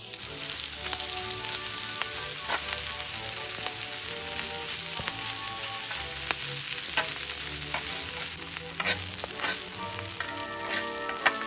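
Food sizzling in a pan with scattered pops, over soft background music.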